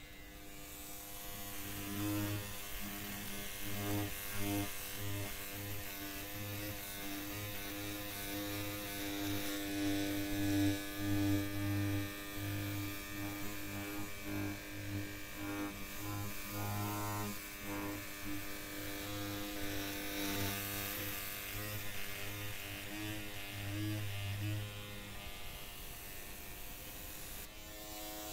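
Electric hair clippers buzzing while trimming hair. The low buzz keeps cutting in and out and swelling as the blades work through the hair.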